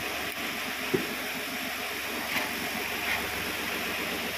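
Steady hum of a homemade evaporative air cooler's fan motor running, with one light knock about a second in.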